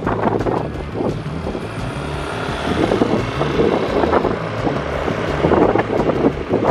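Motorcycle engine running while riding, with wind buffeting the microphone.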